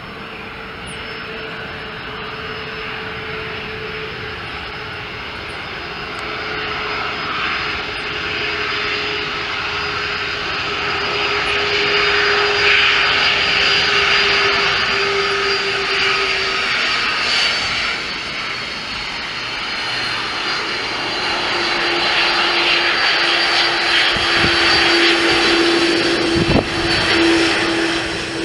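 Boeing 767-300 freighter's twin General Electric CF6 turbofans running as it taxis along the runway, growing steadily louder as it approaches and passes close by. A steady whine runs through the engine noise and sinks slightly in pitch.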